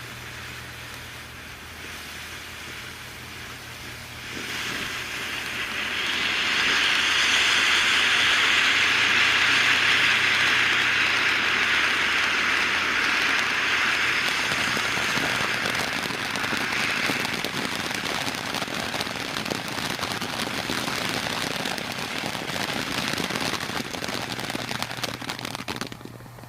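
Ground fountain firework (Red Rhino Stardust, a quiet fountain) burning with a steady spraying hiss. The hiss swells about four seconds in and is strongest for about ten seconds. It then continues a little softer and crackly, and dies away near the end.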